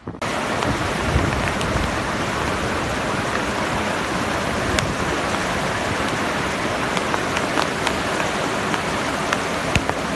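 Flash-flood water rushing over a road, a loud steady rush with no let-up. Sharp clicks are scattered through it.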